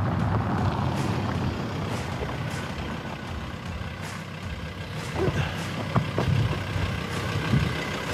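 Pickup truck engine running and its tyres rolling over a gravel road as it comes up slowly and pulls to a stop alongside, a steady low rumble throughout.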